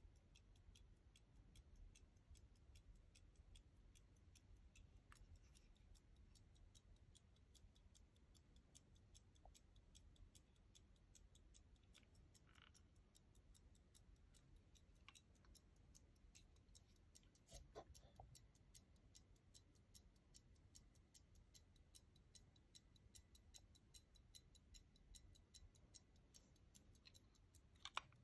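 Detent chronometer escapement of an antique Jules Jürgensen pocket watch ticking faintly and steadily. Somewhat louder handling clicks come from the gold case about two-thirds of the way through and again near the end.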